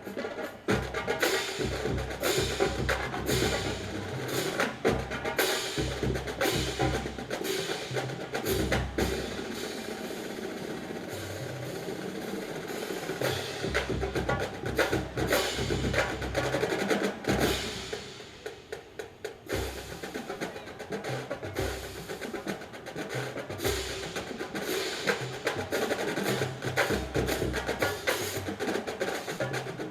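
Marching drumline playing a cadence: snare drums and bass drums in a steady rhythm with sharp stick clicks. It drops quieter briefly about two-thirds of the way through, then picks up again.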